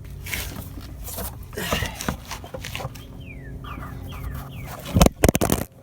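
A few loud, sharp metal clanks close together near the end, from handling the spare-tire hook and lowering rod under the minivan, over a low steady hum. A little past the middle come four short falling chirps, about a quarter second apart.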